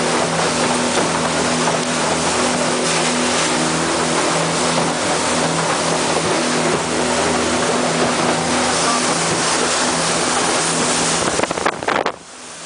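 Passenger speedboat under way at speed: a steady low engine drone under a loud rushing noise of water and wind, dropping away sharply near the end.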